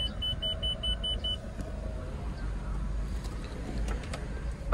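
2018 Suzuki Ertiga's engine idling low and steady, heard from inside the cabin. A dashboard warning chime beeps rapidly, about five short beeps a second, and stops about a second in. A sharp knock comes right at the end.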